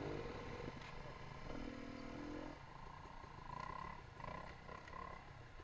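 Enduro motorcycle engines running at low revs as the bikes creep along, with a brief rev about two seconds in.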